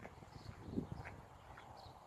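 Footsteps crunching on gravel, faint and irregular.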